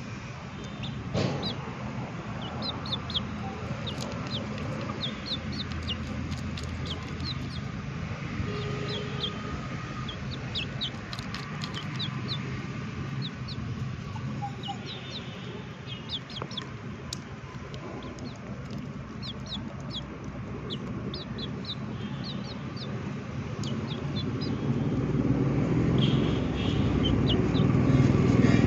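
Chickens feeding from a steel bowl of rice, with many short high chirps scattered throughout and a few sharp pecking clicks. A steady low rumble runs underneath and grows louder near the end.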